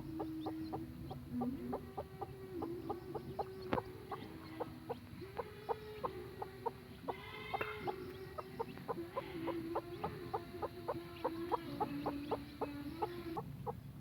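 Mother hen clucking over and over to her chicks, short clucks several a second, with a few louder calls about halfway through. A steady low tone that shifts pitch now and then runs underneath.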